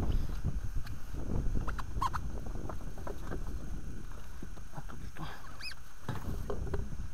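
Handling noise in an inflatable PVC fishing boat: a low rumble with scattered light knocks and rustles as gear is moved. Two short high squeaks stand out, one about two seconds in and one near six seconds.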